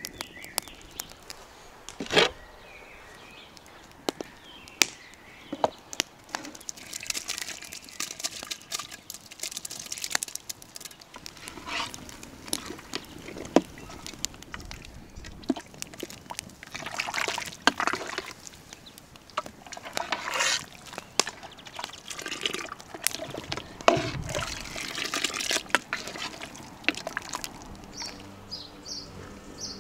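Wood fire crackling and popping, with a metal ladle stirring and sloshing soup in a large metal pot. Birds chirp near the end.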